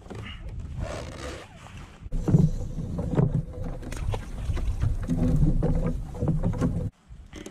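Movement noise on a plastic sit-on-top kayak as the angler leans out over the side to bring in a fish: loud, uneven low rumbling and bumps with a few short clicks. It comes in about two seconds in and cuts off abruptly near the end.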